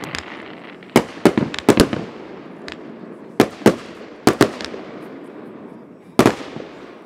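Fireworks exploding: about a dozen sharp bangs of aerial shells and firecrackers, coming in clusters about a second apart, over a steady background din of more distant fireworks.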